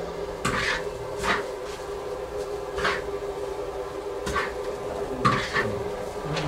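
Metal spatula scraping against a large wok while fried rice is scooped out, about six short scrapes at uneven intervals over a steady hum.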